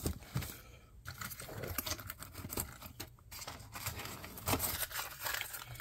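Faint handling noises: scattered light clicks and rustles of small objects being moved, a little louder about four and a half seconds in.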